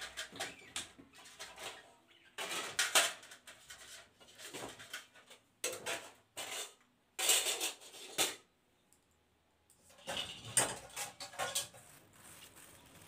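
Stainless steel plates and bowls clinking and clattering against each other as they are lifted out of a box and set down. The clatters come in a string of short bursts, with a brief quiet spell about two-thirds of the way through.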